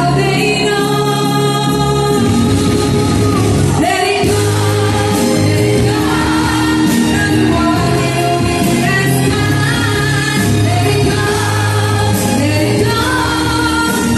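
Singing accompanied by a brass band: sustained voices with vibrato over held brass chords and a steady bass line.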